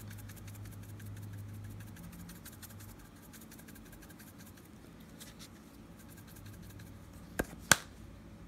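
Dried dill weed being sprinkled into a rice-and-meat stuffing mixture: faint, fine crackly rustling, then two sharp clicks close together near the end.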